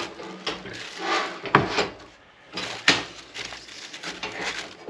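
Packing material being handled inside an open metal camp stove: irregular rustling as foam inserts and packing wrap are lifted out, with several sharp knocks and clunks against the stove.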